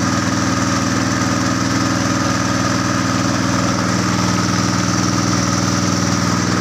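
Small boat engine running steadily at an even speed, a constant low hum without changes in pitch.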